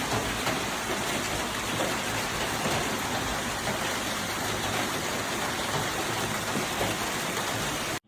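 Heavy hailstorm: hailstones pelting down in a dense, steady downpour that cuts off abruptly at the very end.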